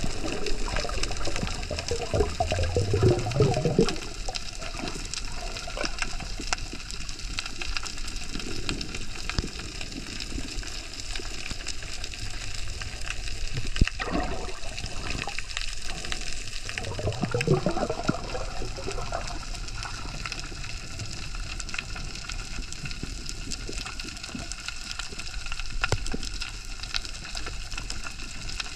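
Ambient sea noise recorded underwater: a steady hiss of water with fine crackling ticks throughout, and louder rushing swooshes of moving water at the start and again about midway.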